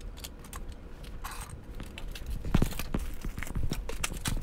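Handling noise of small items being picked up and moved on a wooden table: scattered light clicks and knocks, a brief crinkle of a plastic bag about a second in, and a few sharper knocks a little past halfway.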